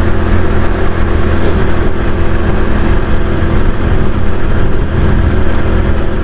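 Motorcycle engine running steadily at cruising speed, heard from the rider's position, under a constant rush of wind and road noise.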